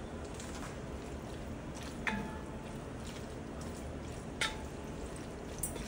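Cooked spaghetti being stirred into tomato sauce, a soft wet squelching, with three sharp clicks, about two, four and a half and near six seconds in, the first two ringing briefly.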